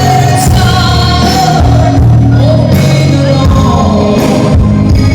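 A singer's voice through a PA, singing a held, gliding melody over loud band backing at a sound check.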